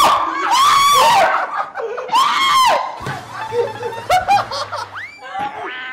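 Several people shrieking and laughing in fright: high-pitched screams with arching pitch, loudest near the start and again about two seconds in, trailing into shorter laughs and cries.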